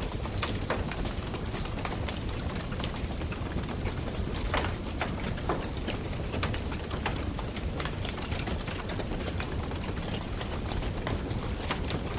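Wood campfire burning, with a steady low rush of flames and irregular sharp crackles and pops of burning wood.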